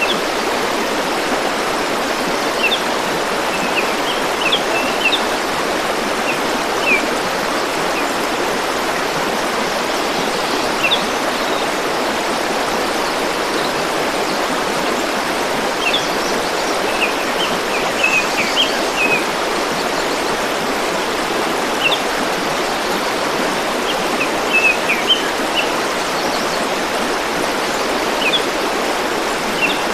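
River water flowing steadily, with a small bird giving short, high chirps in scattered clusters throughout.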